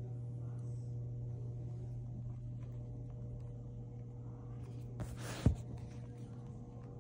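A steady low hum, broken about five seconds in by a short rustle that ends in a sharp knock.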